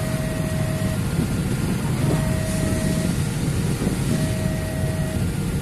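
Railway level-crossing warning alarm sounding its electronic two-tone signal: a lower tone and a higher tone take turns about once a second, the signal that the barriers are down and a train is coming. A steady low rumble runs underneath.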